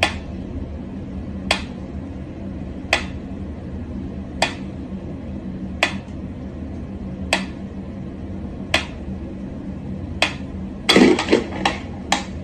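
Mechanical wind-up metronome ticking slowly, one sharp tick about every one and a half seconds. Near the end a short flurry of louder knocks and clatter.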